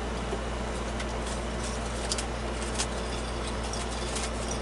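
Scrambled eggs being stirred in a frying pan: a steady hiss and low hum with a few light clicks of the utensil against the pan.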